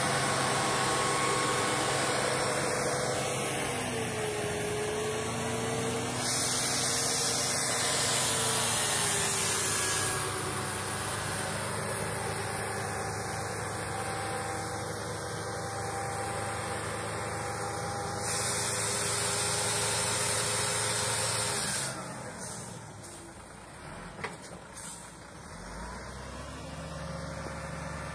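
Heavy diesel engines of a truck and a Caterpillar 320 tracked excavator running steadily, the engine note shifting in pitch a couple of times as the load changes. Two stretches of loud hiss, each a few seconds long, come in over the engines, and the sound drops in level near the end.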